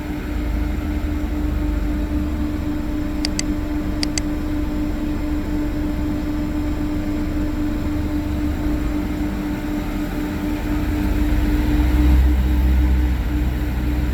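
CNC lathe running steadily while the cutting tool follows the contour of the part, with a steady hum. Two pairs of brief high clicks come about three and four seconds in, and a low rumble swells about two-thirds of the way through.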